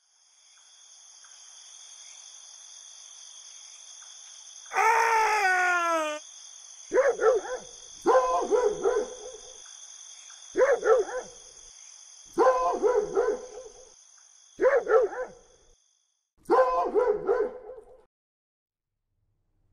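A dog howls once, its pitch falling over about a second and a half, then barks in six short bursts of a few barks each, over a steady high-pitched background drone.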